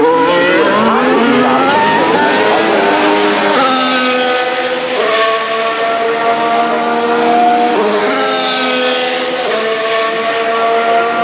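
Formula 1 car's 1.6-litre turbocharged V6 hybrid engine running at high revs, its pitch sliding in the first few seconds and then jumping abruptly at several gear shifts.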